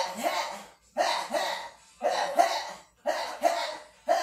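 A person's forceful breathy exhales or grunts of exertion, about one a second and evenly spaced, in time with workout moves.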